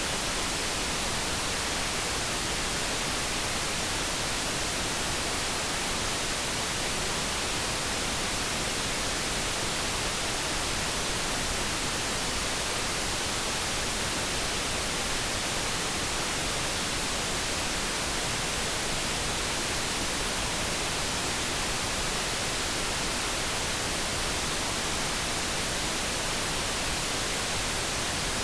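Steady synthetic noise: an even, unbroken hiss that does not change.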